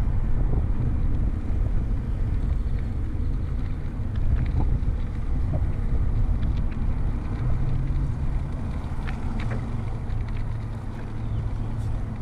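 Wind buffeting the microphone of a camera riding on a moving bicycle: a steady low rumble, with a few faint clicks.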